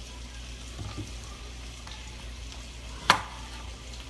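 Beef chuck roast sizzling steadily as it browns in oil and butter in a hot skillet. A single sharp knock about three seconds in.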